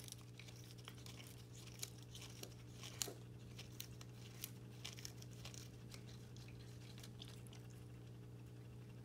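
Siamese cat chewing and tearing at the leaves of a flower bouquet: a run of small crunching clicks that thins out about six seconds in, over a steady low hum.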